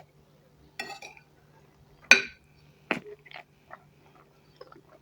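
Cutlery clinking against a dish during a meal: three sharp clinks, the loudest about two seconds in with a short ring after it, followed by a few fainter taps and clicks.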